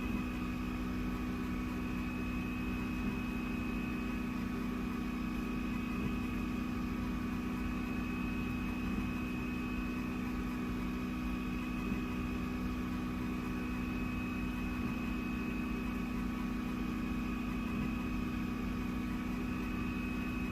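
A machine's motor running steadily, with a constant hum and a faint tick about every three seconds.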